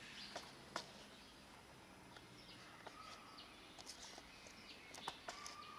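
Near silence: quiet outdoor ambience with a few faint sharp clicks and short faint high chirps.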